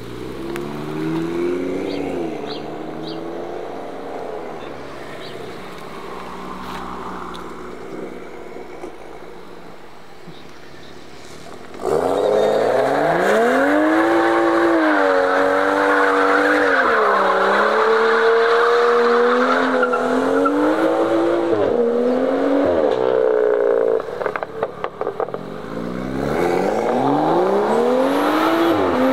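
Modified BMW cars accelerating away, one engine climbing in pitch, then a sudden loud spell of hard revving that rises and falls with tyre squeal, as in a burnout. A short burst of crackling exhaust pops follows, then another car accelerates hard with its pitch rising.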